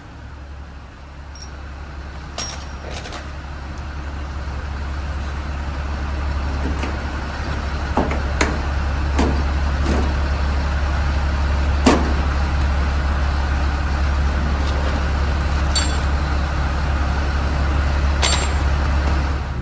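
Ryobi angle grinder with a metal grinding disc cutting through a padlock shackle: a steady, loud running noise that builds over the first several seconds, with a few sharp clicks and ticks. It stops abruptly at the end as the shackle is cut through.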